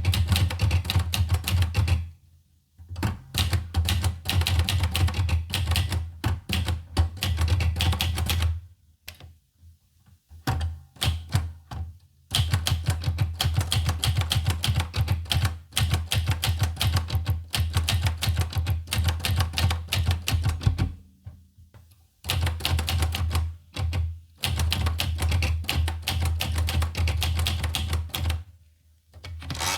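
Olivetti Lettera 25 portable manual typewriter being typed on: rapid keystrokes in runs of several seconds, broken by a few short pauses.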